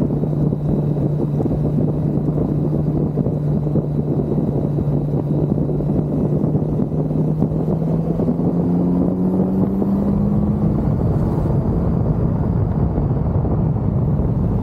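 Kawasaki Z900 inline-four motorcycle engine running steadily under way, with wind and road noise. About eight seconds in the engine note rises over a couple of seconds as the bike accelerates, then holds steady.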